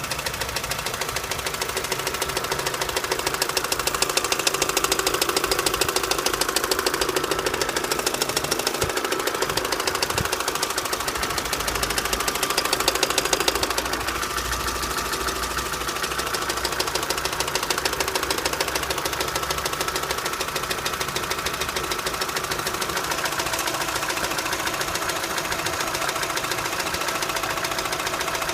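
Opel Astra H's Z16XEP 1.6-litre four-cylinder petrol engine running with a rapid, steady knocking, a little louder for a stretch a few seconds in. A garage put the knock down to the intake manifold and its Twinport flaps, not the camshafts or pistons.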